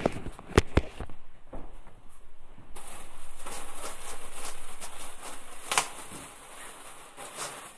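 A few sharp knocks as the phone is handled and set down, then several seconds of rustling fabric as clothes are handled and put on, with another knock near the end.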